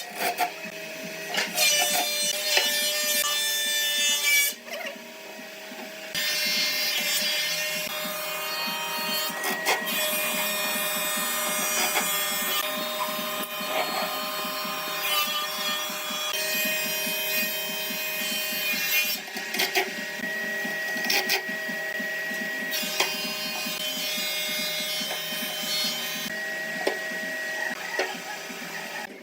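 Woodworking power tool running on wood in several stretches, with brief drops in between.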